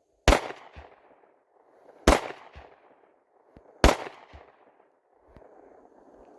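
Beretta 92FS pistol fired three times, slow and evenly spaced about two seconds apart, each shot sharp with a short echo trailing after it.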